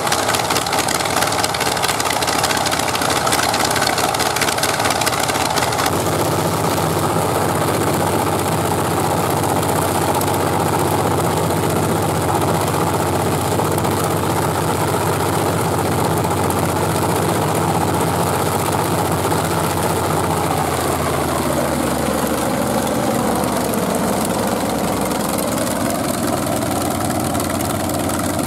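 Wright nine-cylinder radial aero engine running steadily on a test stand, turning its propeller. Near the end its note drops as it slows, then rises again.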